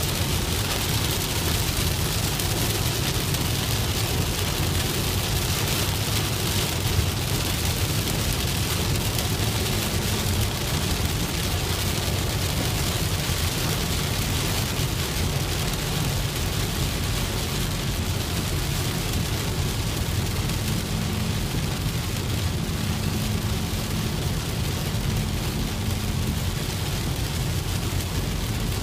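Car driving in heavy rain, heard from inside: a steady low road and engine rumble under an even hiss of rain on the car.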